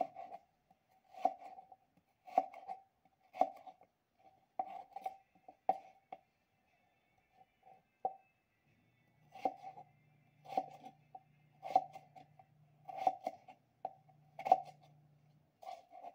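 Kitchen knife slicing a peeled raw potato into fry strips on a plastic cutting board: about one cut a second, each ending in a knock on the board, with a pause of a few seconds midway.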